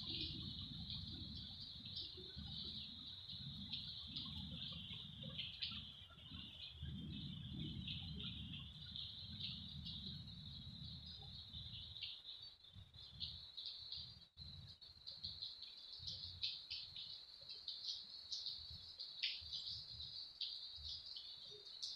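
Stormy outdoor ambience: wind buffeting the microphone in gusts, heavy through the first half and lighter after, under a continuous high-pitched chirping.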